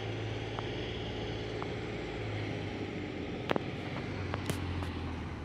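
An engine running steadily with a low, even hum, with a few light clicks about three and a half and four and a half seconds in.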